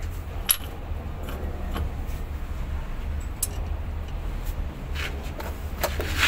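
Scattered light metal clinks and taps from hand work on a truck transmission's output flange, the loudest near the end, over a steady low hum.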